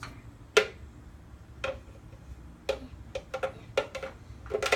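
A utensil knocking and scraping against a cooking pot while the simmering slime mixture is smushed, about eight irregular knocks with a short metallic ring. The loudest comes about half a second in, and a quick run of knocks follows near the end.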